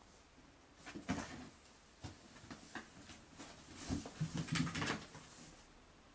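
Cardboard box rustling, scraping and knocking as a cat scrabbles in and around it and pushes the flaps, in short irregular bursts, busiest about four to five seconds in.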